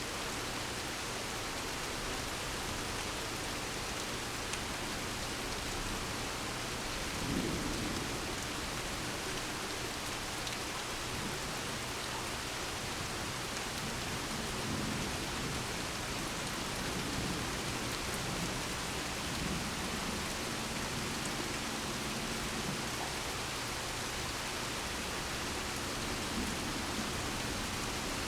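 Steady rain falling during a thunderstorm, with thunder rumbling several times; the loudest rumble comes about seven seconds in, with weaker ones later.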